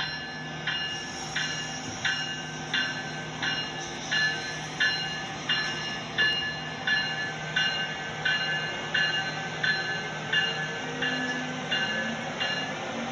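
A bell dinging at a steady pace, about three strikes every two seconds, each ringing briefly before the next, stopping near the end. A steady low hum runs underneath.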